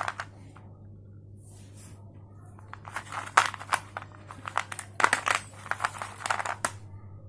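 Slate pencil being crunched: two spells of sharp, crackly crunches, the first coming after a couple of quiet seconds and the second starting about five seconds in.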